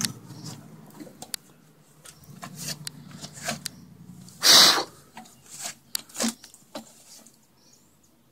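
Cloth towel rubbing and wiping over a lawnmower's plastic engine shroud and deck, with scattered handling clicks and knocks. A single loud, short rush of noise comes about halfway through.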